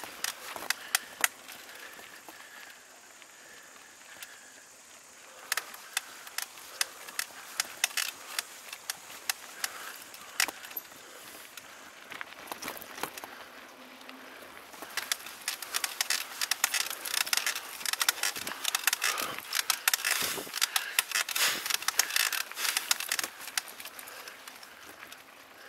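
Mountain bike rattling and clicking as it rolls over a bumpy dirt trail. The rattles are sparse at first and come thick and fast through the second half.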